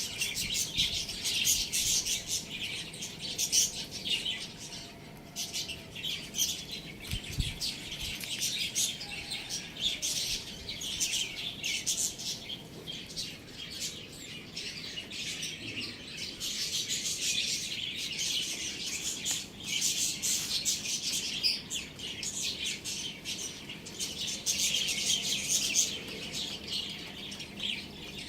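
Many small birds chirping at once: a dense, steady chatter of short, high chirps.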